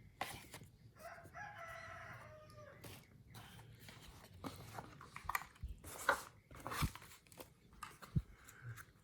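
A rooster crows once in the background, a single call of about two seconds. It is followed by scattered clicks and rustling from packaging and parts being handled.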